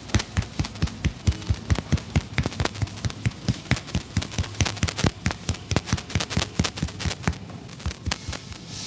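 A barber's hands slapping and tapping a customer in a percussive massage: sharp claps at about four to five a second, kept up without a break.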